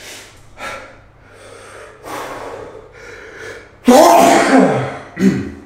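A man sneezing: a few short sharp breaths building up, then one loud sneeze about four seconds in, with a short second voiced burst right after it.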